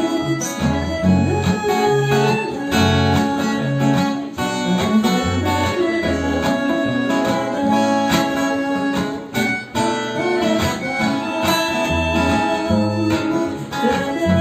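Instrumental break of an acoustic blues song: guitar over steady bass notes with a held melody line above.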